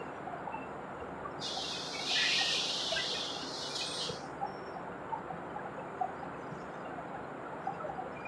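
Metalworking machine tool running with a steady noise and scattered small ticks; about a second and a half in, a hiss starts and cuts off about two and a half seconds later.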